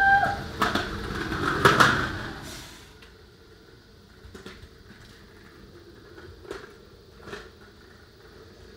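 Hard wheels of a child's three-wheeled trike rolling and scraping on a concrete driveway, a loud rattle full of clicks for the first two seconds or so, then fading to faint scattered clicks.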